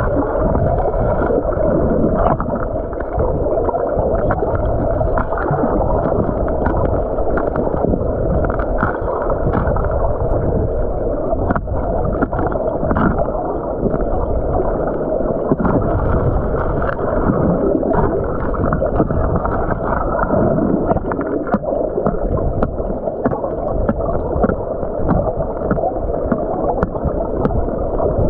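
Muffled rush of stream water heard by a submerged camera, with many small clicks and knocks of gravel and stones being stirred on the riverbed.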